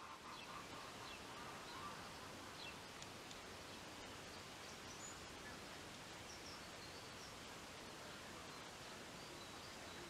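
Faint outdoor ambience: an even, low background hiss with a few faint, short bird chirps now and then.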